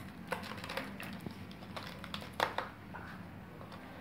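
Hands handling a glass laser tube in its cardboard box and foam packing: scattered light clicks and knocks, with a louder knock about two and a half seconds in.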